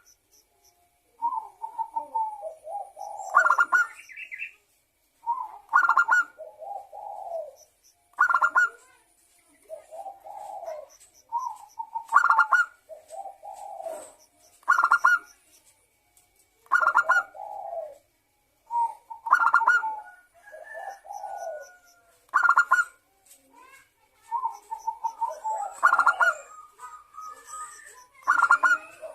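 Local zebra dove (perkutut) cooing over and over, a new phrase every two to three seconds; each phrase is a quick rolling trill followed by a few lower, softer coos.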